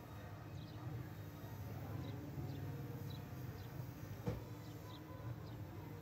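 Faint outdoor background: scattered short high chirps over a low steady hum, with a single knock about four seconds in.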